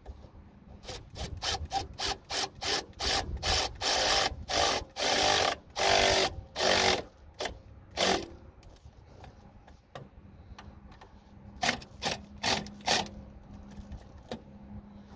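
Milwaukee cordless electric ratchet running down a bolt in short motor bursts, a quick string of them over the first several seconds, then a few more short bursts near the end.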